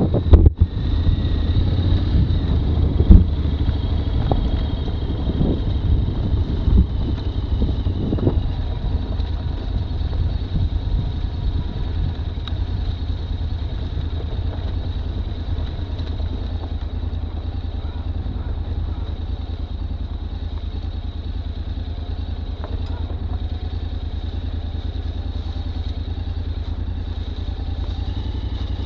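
Honda X-ADV's 745 cc parallel-twin engine running steadily at low speed as the bike rolls along a rough dirt trail, with a few knocks and clatters over the first eight seconds, the loudest about three seconds in.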